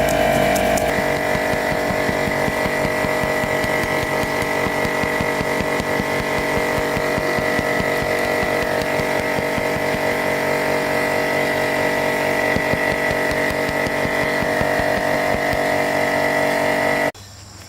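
A machine running steadily with a constant high whine over a fast, even pulsing, stopping abruptly near the end.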